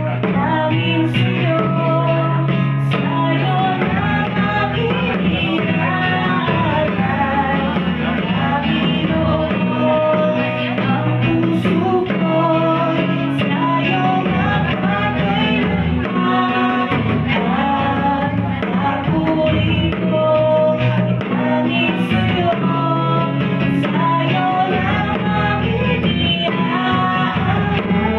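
Live acoustic band playing a song through microphones: a woman sings lead over a strummed acoustic guitar and hand drums, with a man singing along on a second microphone.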